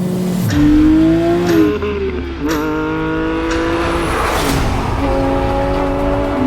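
Porsche 997.1 GT3 RS's 3.6-litre Mezger flat-six accelerating hard. Its pitch climbs through the revs and drops at upshifts of the manual gearbox about two seconds in and again about four and a half seconds in, then holds steady.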